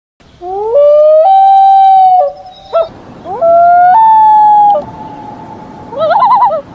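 Loon wailing: two long, loud rising calls, each climbing in steps and then held. Near the end comes a wavering, yodel-like tremolo call.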